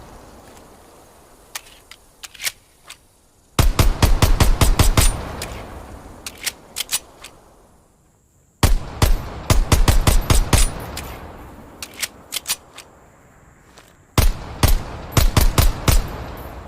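M1911 .45 pistol fired in three rapid strings of shots, several shots a second, each shot ringing off into a fading tail. Between the strings come a few lighter, sharp clicks.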